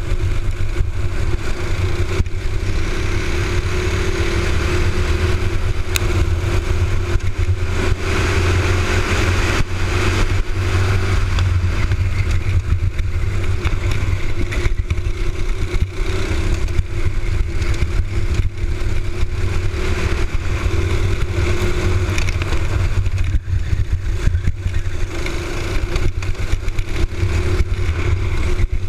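Honda box-stock kart engine, a small single-cylinder four-stroke, running hard through a race lap, its pitch rising and falling slightly as the kart goes through the corners.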